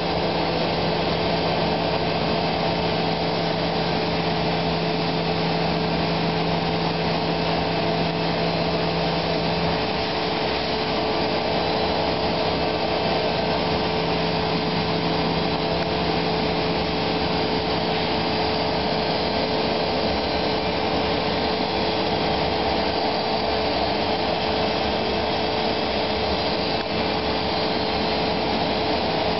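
MultiCam 3000 Series CNC router running steadily, its spindle and cutter milling a block of polyurethane foam, with a continuous whine over a noisy hiss. A low hum under it stops about ten seconds in.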